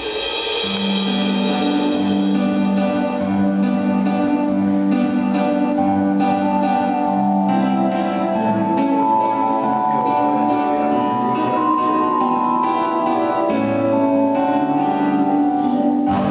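Instrumental music: held notes in several parts that change every second or so.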